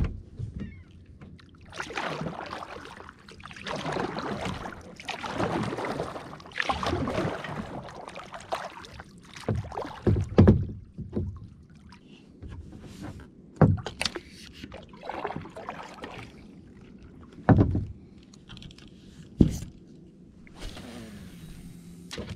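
Kayak paddle strokes dipping and splashing in the water, one about every second and a half for several strokes. These are followed by a few sharp knocks on the plastic kayak hull.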